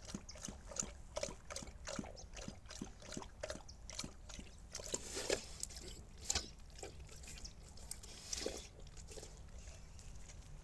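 A Bernese mountain dog lapping water from a plastic bowl, with wet splashy laps at about three a second. The lapping breaks off partway through, with a few scattered sounds, and starts again near the end.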